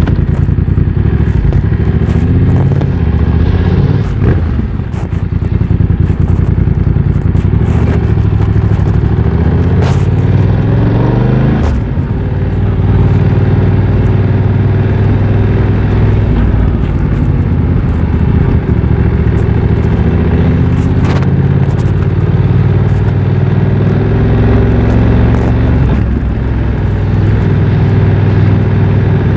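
BMW F900 XR's parallel-twin engine running through a MIVV X-M1 aftermarket exhaust while riding. Its pitch rises and falls with the throttle, climbing steadily around ten seconds in and dropping suddenly at about twelve seconds, as at an upshift.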